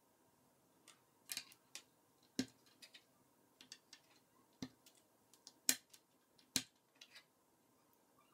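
K'NEX plastic rods and connectors clicking as they are handled and snapped together, a run of irregular sharp clicks.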